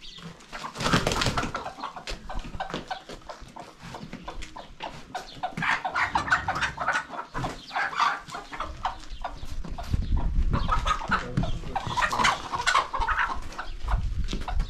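Domestic chickens clucking and cackling, in busy stretches through the middle and near the end.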